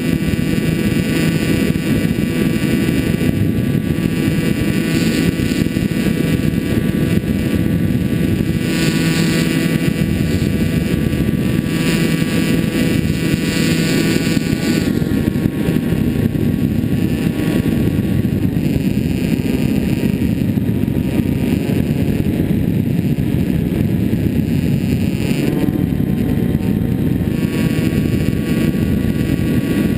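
Finwing Penguin RC plane's electric motor and pusher propeller running steadily, heard from the onboard camera with wind rush over the microphone. The motor's pitch drops about halfway through and rises again a few seconds before the end.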